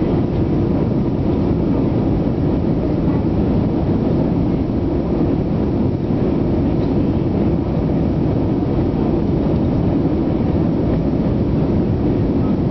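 Steady low rumble of engine and airflow noise inside the cabin of an Airbus A320-200 on its descent toward landing.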